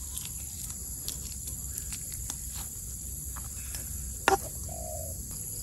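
Steady high-pitched insect chorus, like crickets trilling, with faint wet clicks of a fish being gutted by hand on a wooden board and a sharp click about four seconds in.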